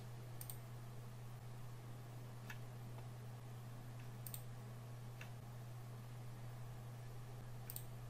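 Computer mouse clicking about five times, short sharp clicks a second or two apart, over a steady low hum.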